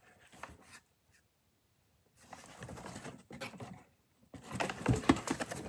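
A cardboard box being handled and turned: it scrapes and rubs. There is a short quiet gap about a second in, and the knocks and rubbing get louder in the last second or so.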